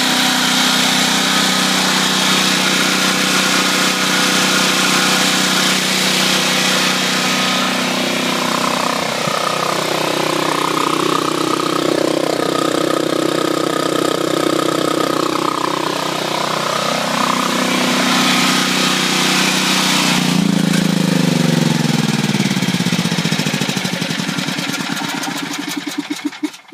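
Generac XG8000E portable generator's engine running steadily inside its shed enclosure, heard partway through at the shed's exhaust outlet. About two-thirds of the way in its pitch starts falling steadily, and it winds down and dies away near the end, like an engine being shut off and coasting to a stop.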